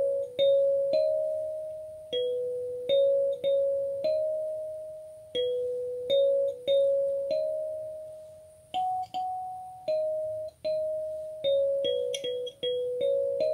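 Gecko kalimba played with the thumbs: a slow melody of plucked metal tines, single notes and the odd two-note chord, each ringing out and fading before the next.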